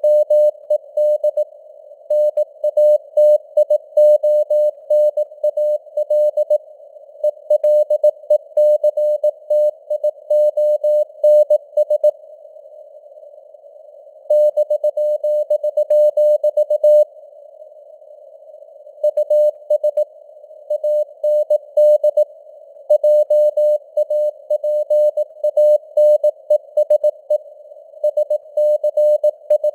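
Morse code (CW) sent at 18 words per minute: a single steady-pitched beep keyed on and off in dots and dashes, over a narrow band of simulated radio hiss. The keying stops for about two seconds twice in the middle, leaving only the hiss.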